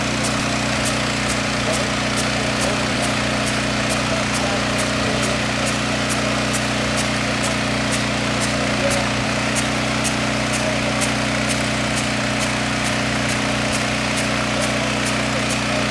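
Small engine-driven water pump running steadily at constant speed, feeding a high-pressure hose stream. A faint, regular high ticking a few times a second runs over it.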